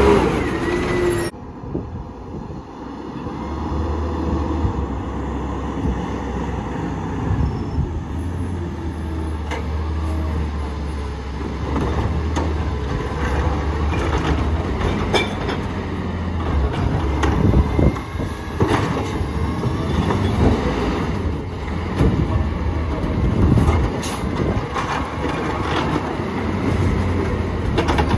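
McNeilus ZR automated side-loader garbage truck with its diesel engine running in a steady low drone. From about ten seconds in there are irregular knocks and clanks of the truck's arm and the plastic carts as it picks them up.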